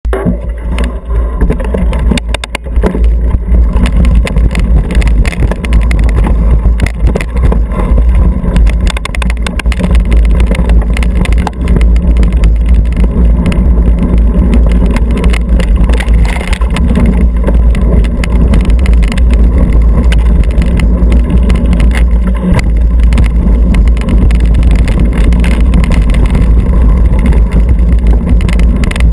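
Mountain bike riding fast over rough dirt singletrack, heard through a bike-mounted action camera: a loud, steady low rumble of wind buffeting and tyre noise, broken by frequent rattles and knocks as the bike goes over stones and ruts.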